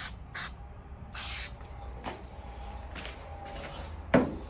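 Aerosol can of spray headliner adhesive hissing in short bursts: two quick sprays, then a longer one about a second in.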